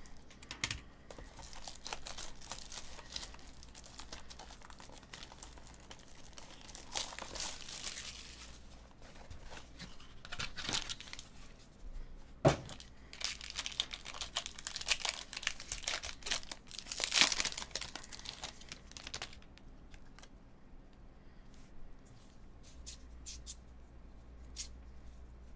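Plastic wrapping being torn and crinkled off a cardboard box of trading cards, then the box being opened, with one sharp snap about halfway through. Near the end the rustling stops and the stack of cards gives only scattered soft ticks as it is handled.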